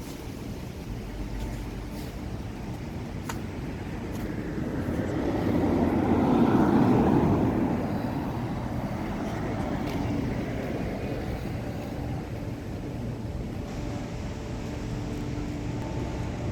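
A passing vehicle over a steady outdoor background, swelling to its loudest about six to eight seconds in and then fading back down.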